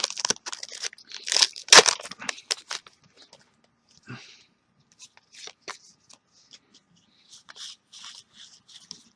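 Crinkling and tearing of a trading-card booster pack wrapper, loudest and densest in the first three seconds, then softer scattered rustles as the cards are handled.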